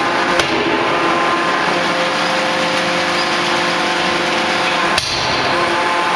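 C92K-125 CNC fully hydraulic die forging hammer striking hot steel in its die, over a steady, loud machine hum with several held tones. There is a light blow about half a second in and a sharp, heavy strike about five seconds in.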